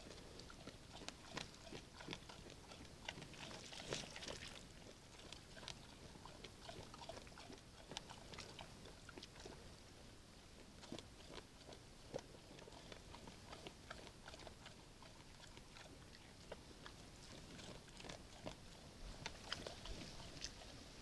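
Bear chewing bait at a feeder box: a faint, irregular run of crunches and clicks from its jaws.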